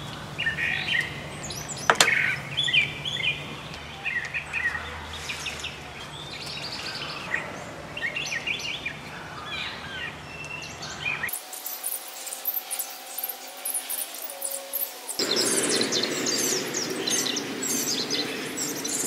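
Birds chirping and calling, with a sharp click about two seconds in and scraping near the end from a tubing cutter being fitted and worked on a copper water pipe.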